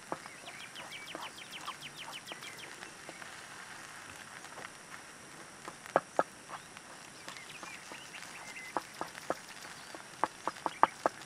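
Wooden spatula scraping and knocking against a small frying pan while egg is stirred into fried rice, with sharp knocks about six seconds in and a quick run of them near the end, over a steady hiss.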